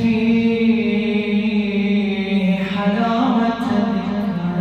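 A man chanting an Arabic du'a (supplication) solo. He holds one long drawn-out note, then moves into a wavering, ornamented phrase about three seconds in.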